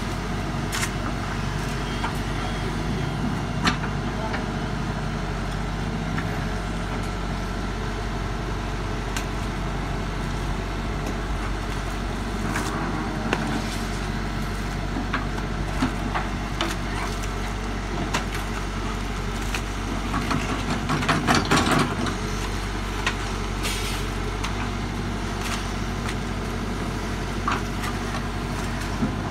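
Caterpillar backhoe loader's diesel engine running steadily under load as the backhoe digs, with scattered knocks and clanks. A cluster of scraping and knocking comes about 21 seconds in.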